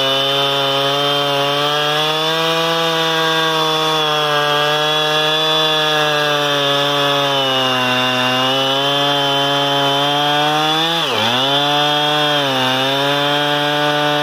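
Two-stroke gas chainsaw running at high throttle while cutting into a large log, its pitch wavering with the load. About three-quarters of the way through the engine bogs down sharply and recovers, then dips once more.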